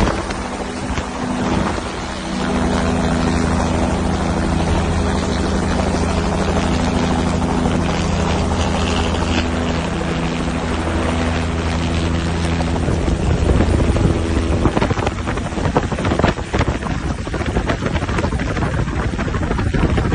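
Helicopter hovering, its rotor and engine making a steady drone, heard from the open cabin door. About fifteen seconds in the drone drops away, leaving rough, gusting wind noise.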